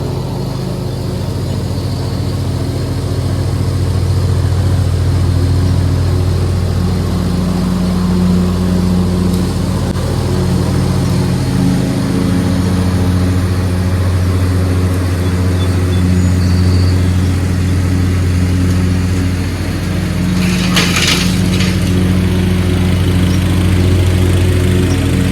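Craftsman riding lawn tractor's engine running steadily under load while mowing with the deck engaged. The pitch shifts slightly now and then, and there is a brief hissy rush about three-quarters of the way through.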